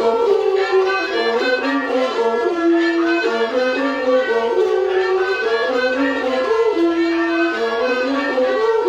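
Thai classical music, a homrong (overture), played by an ensemble with a bowed string instrument carrying the melody. The melody moves in short held notes that step up and down.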